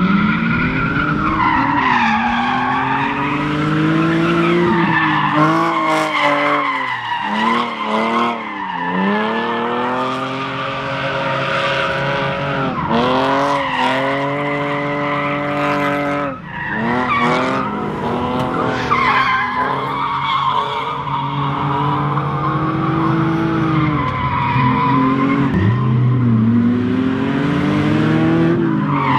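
A BMW E46 drift car sliding sideways, its engine revving hard, the revs climbing and dropping again and again, over a wavering tyre squeal.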